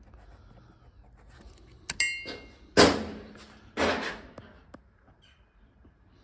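A sharp metallic ping with a brief ring about two seconds in, followed by three short loud knocks, the last two about a second apart.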